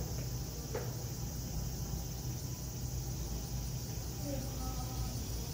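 Steady outdoor background: a low hum with a high, even insect drone over it, typical of summer insects.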